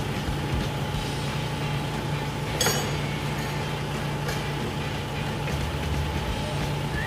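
Styrofoam factory machinery running with a steady hum, with one short, sharp sound that falls in pitch about two and a half seconds in.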